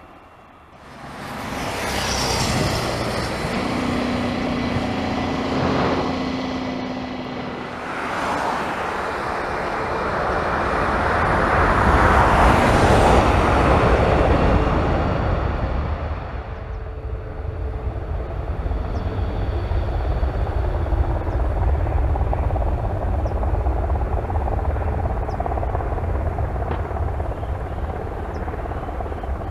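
Boeing 737 MAX 8's two CFM LEAP-1B turbofans spooling up to takeoff thrust about a second in. The jet noise grows loudest as the airliner rolls past on its takeoff run, then eases to a low rumble as it accelerates away.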